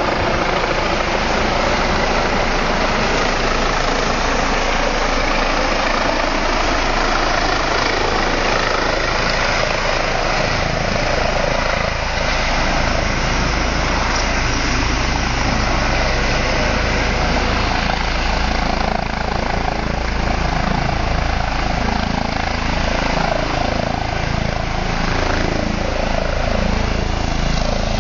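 Helicopter running close by, its rotor and engine a loud, steady noise. The low rumble grows stronger about halfway through.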